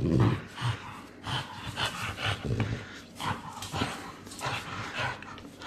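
A French bulldog at play with a rope toy, making short, irregular breathing and mouth noises.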